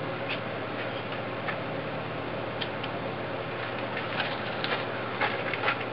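Footsteps crunching on gravel, a few scattered steps at first and then a quicker run of them about four seconds in, over a steady outdoor background hiss.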